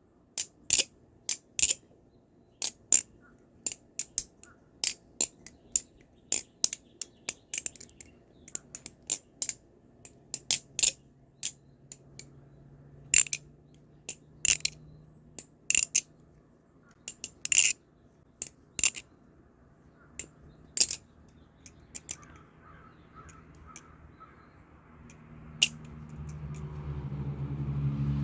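Krake Raken V3 butterfly knife (balisong) being flipped with its pivots not yet lubricated with Carbon Honey: sharp metallic clicks of the handles and blade knocking together, irregular, one or two a second. Near the end a low steady hum swells up underneath.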